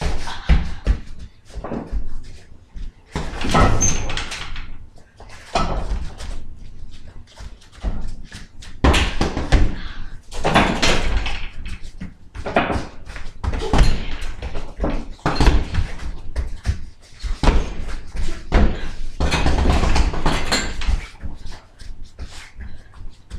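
Kicks and punches landing on a hanging heavy punching bag and a freestanding training dummy: a long run of thuds in irregular bunches.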